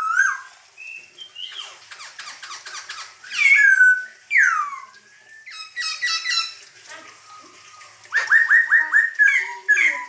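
Black-throated laughingthrush (poksay Hongkong) singing a loud, varied song of clear whistles. It has long falling slurs about three and a half seconds in, a fast chattering run around six seconds, and a quick string of about six falling whistles near the end.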